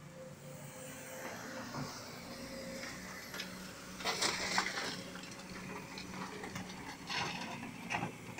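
Kobelco 210 excavator's diesel engine running steadily, with two loud rattling, scraping bursts about four and seven seconds in.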